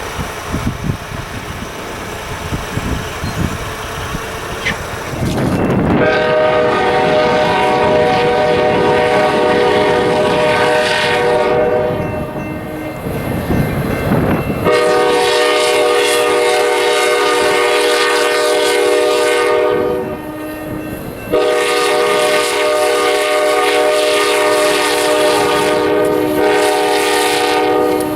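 Diesel locomotive's multi-chime air horn sounding three long blasts, a chord of several steady notes, with short gaps between and the last still going at the end. Before the horn starts, about six seconds in, there is a low rumble.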